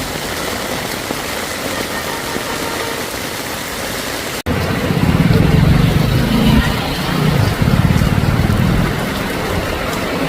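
Heavy rain and slow street traffic: a steady hiss of rain and road noise, then after an abrupt cut about four and a half seconds in, a louder, uneven low rumble of vehicle engines.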